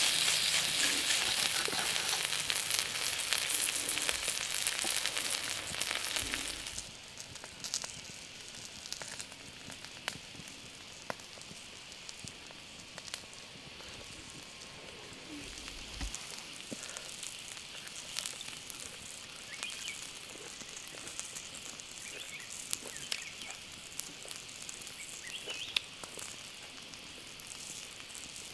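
Pieces of meat sizzling and frying on a hot, flat cooking surface, a steady dense hiss that cuts off abruptly about six and a half seconds in. After that, quiet forest background with scattered faint clicks and a few short, high chirps.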